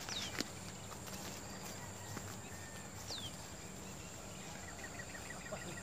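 Outdoor riverside ambience: a steady high insect drone over low background noise, with two short falling whistles about a second and three seconds in and a quick run of faint ticks near the end.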